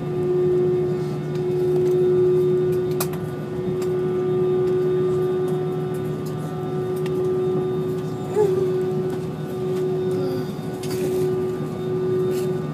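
Airbus A320 cabin noise heard from a window seat during the landing rollout: the jet engines and airflow make a steady drone with a constant hum, plus a few faint clicks and rattles of the cabin.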